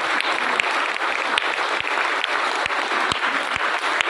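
A large audience clapping, many hands at once in steady applause.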